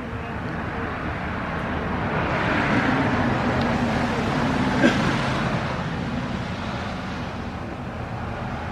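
Road traffic: a vehicle passes, its noise building for a couple of seconds and fading away again over a steady traffic hum.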